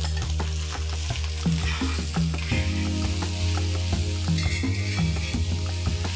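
Sliced onions frying and sizzling in hot mustard oil, stirred with a metal spatula that scrapes and taps against the pot again and again.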